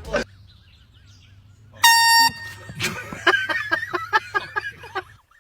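A single short, loud air-horn blast about two seconds in, followed by a person's voice in quick rhythmic bursts, about four a second, over a low hum.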